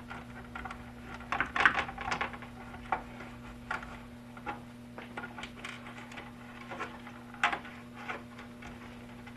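Scattered clicks and light taps of a screwdriver and fingers on small plastic parts as the circuit board is unscrewed and lifted out of a Big Mouth Billy Bass toy, with a faint steady hum underneath.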